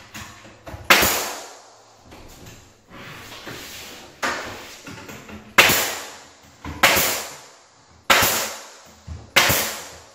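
Wood trim being nailed in place: about six sharp, single nailing shots at irregular intervals of about a second or more, each ringing briefly in the room, with lighter knocks between them.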